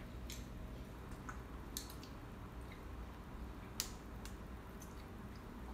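Small clicks and smacks of young children eating at a table, scattered and faint over a low room hum, with one sharper click nearly four seconds in.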